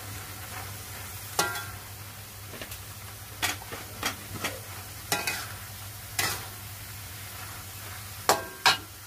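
Metal spatula stirring cassava leaves through a wet curry base in an aluminium wok. It scrapes, with about nine sharp knocks against the pan, some ringing briefly, the loudest two near the end, over a low steady hum.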